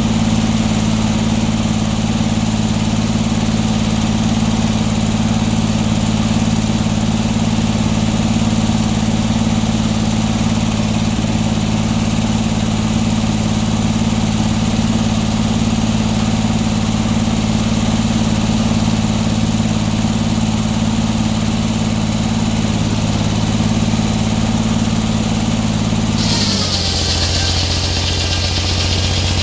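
Sawmill engine running steadily at one speed. Near the end its pitch drops and a loud hiss comes in.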